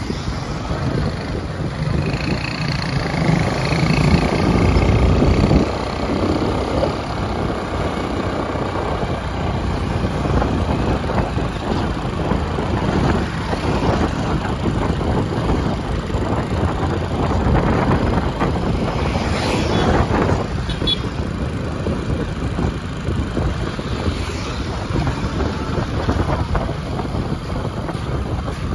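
Street traffic heard from a moving vehicle: steady engine rumble and road noise, with wind buffeting the microphone, motorbikes and cars all around. It swells louder about four seconds in and again about two-thirds of the way through, as traffic passes close.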